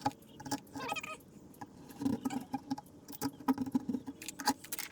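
Screwdriver tip scraping and picking old glue and dirt out of a window frame's glass channel: a run of irregular small scratches and clicks.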